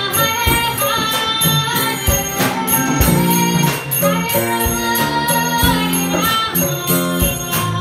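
Live kirtan band playing a devotional song: a voice sings over drum kit, guitars and harmonium, with jingling hand percussion and steady drum hits.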